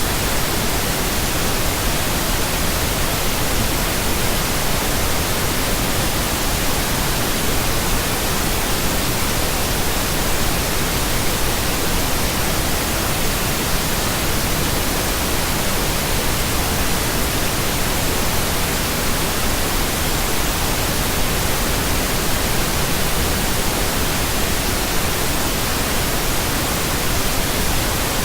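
Synthetic pink noise: a steady, even hiss that does not change.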